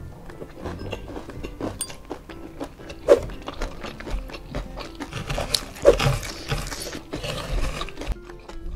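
Close-up chewing of a mouthful of fried chicken, rice and crispy kremes crumbs eaten by hand, full of small mouth clicks, with two sharper clicks about three and six seconds in, over soft background music.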